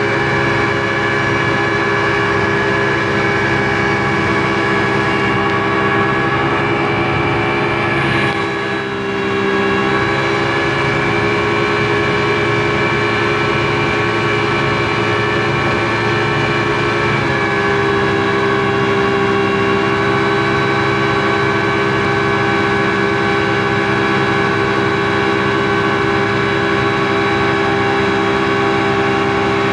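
Speedboat engine running steadily at cruising speed, heard from inside the boat's cabin, with a brief dip about eight seconds in.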